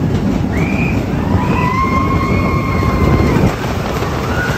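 Expedition Everest roller coaster train rumbling along its track, with a long high tone held over the rumble from about two seconds in; the rumble eases a little near the end.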